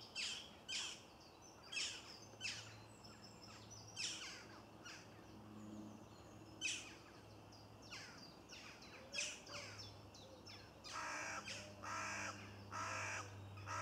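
Jackdaw calling: short, sharp calls every second or two, then near the end a run of louder, longer calls in quick succession.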